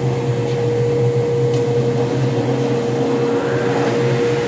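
Electric saw for cutting hive-body handholds running at steady speed, not yet cutting, with a steady whine over a low hum.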